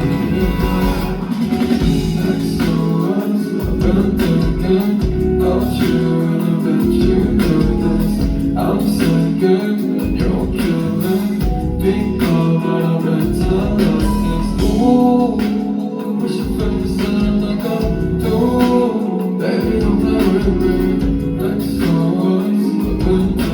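A pop song performed live with singing over a concert sound system, with a strong bass line.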